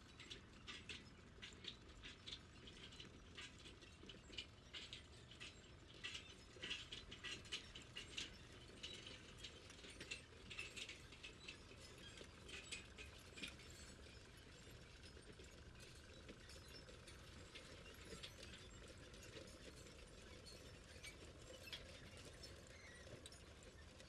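Near silence with faint scattered clicking of a computer mouse, thickest in the first half and sparser later.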